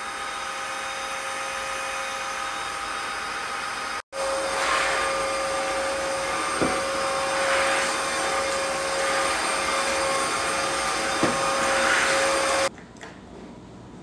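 BISSELL CrossWave HF3 cordless wet-dry vacuum running over a hard floor: a steady motor whir with a whining tone and a hiss that swells every few seconds. It breaks off briefly about four seconds in, comes back louder, and stops suddenly near the end.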